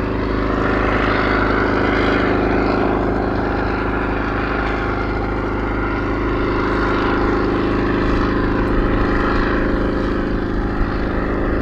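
Bristol Sycamore helicopter in flight, its Alvis Leonides radial piston engine and rotor giving a steady, even-pitched drone. Over it a rushing sound swells and fades slowly as the helicopter moves about.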